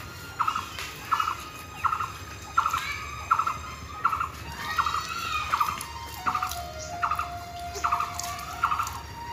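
Cow being milked by hand into a plastic jug: the milk streams hit the container in short, even squirts, about one and a half a second.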